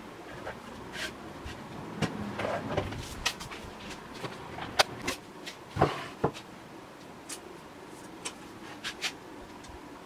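A wooden board being slid and set down on a wooden workbench: scattered clicks and knocks with some scraping, the sharpest knock a little under five seconds in, followed by a couple of heavier thuds about a second later.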